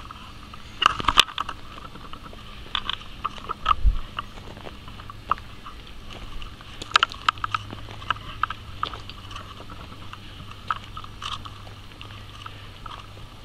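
Footsteps crunching on a gravel road at an irregular walking pace, with a dull thump about four seconds in.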